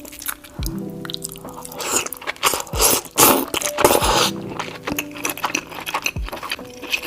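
Close-miked eating of seafood boil: crunchy bites and chewing, loudest about two to four seconds in, over background music with a deep bass beat.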